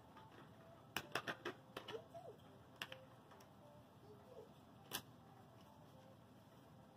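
Small sharp plastic clicks and taps from a fan wire's connector being worked onto a Raspberry Pi 4's GPIO header pins inside its plastic case: a quick cluster about a second in, another click near three seconds and a single one near five.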